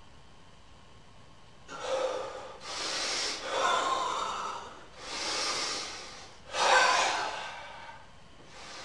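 A person breathing hard: about five loud, noisy breaths or gasps in a row, each about a second long, starting about two seconds in and dying away near the end.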